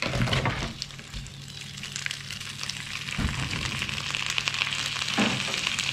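Shrimp, already boiled, tipped into a frying pan of garlic in butter. The sizzling thickens into a steady hiss after about two seconds, with a few low knocks of the pan or spatula.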